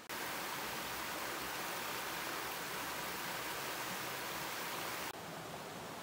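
Water from a small forest waterfall cascading over rocks into a pool, a steady rushing. It turns a little quieter about five seconds in.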